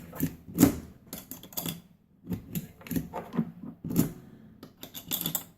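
9mm cartridges being pressed one after another into a pistol magazine with a MagLula-type loader: a string of sharp irregular clicks and short rattles as each round seats.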